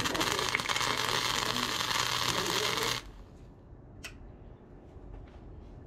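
Arc welding a steel patch seam onto a riding-mower deck. The arc runs steadily for about three seconds and then cuts off, followed about a second later by a single short sharp snap.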